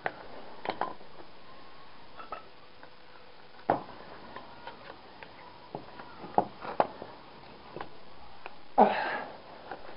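Scattered light clicks and knocks of hand tools working a lead-sheathed cable, with a louder, longer burst of noise about nine seconds in.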